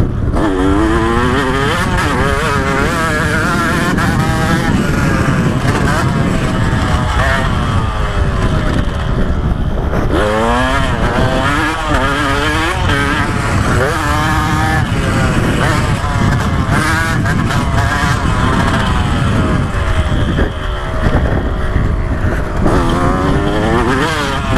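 2015 KTM 125 SX two-stroke dirt bike engine being ridden hard around a motocross track, its pitch climbing and dropping repeatedly as the rider opens the throttle and shifts. Heavy wind rumble on the bike-mounted microphone runs underneath.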